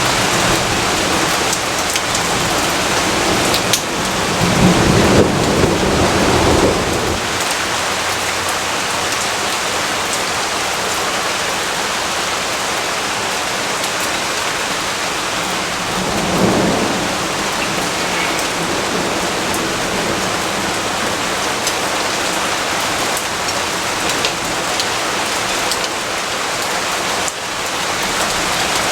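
Steady heavy rain falling, with low rolling thunder: a longer rumble about four to seven seconds in and a shorter one about halfway through.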